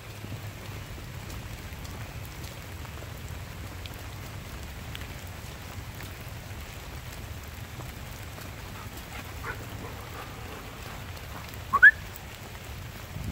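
Steady rain falling on the woodland leaves, with faint scattered drips. Near the end a brief, loud, rising high-pitched sound cuts in.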